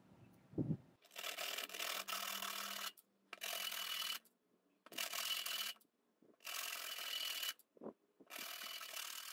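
The end of a small steel tube scraped and twisted against an abrasive sanding disc, in five scratchy rubbing strokes of about a second each with short pauses between. There is a soft knock just before the first stroke.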